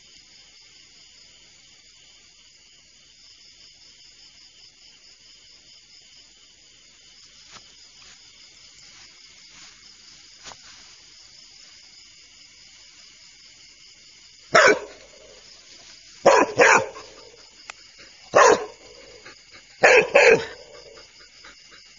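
A dog barking in short, loud barks, six of them in the last eight seconds, some in quick pairs. Under it is a steady chorus of night insects.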